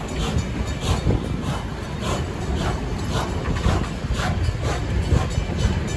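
Heritage wooden passenger carriages rolling slowly over a level crossing. Their wheels clack about twice a second over a low, steady rumble.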